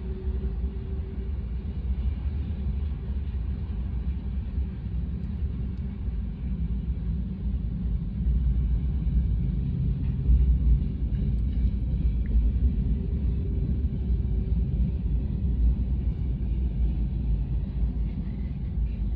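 Freight cars of a CSX local freight train, tank cars and covered hoppers, rolling past over the rails: a steady low rumble. A faint steady whine fades out about a second in.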